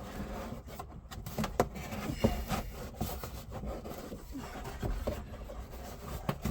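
A glove box liner being manoeuvred into a car's dash opening: scattered light knocks and rubbing as it bumps and scrapes against the dash and its brace.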